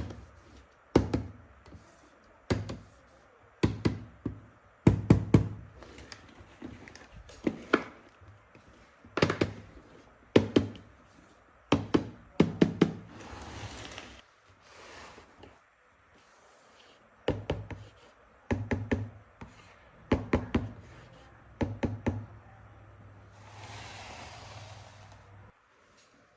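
Irregular knocks and taps of hard toy tools and parts being picked up and set down, often in quick clusters, with a brief rustle near the end.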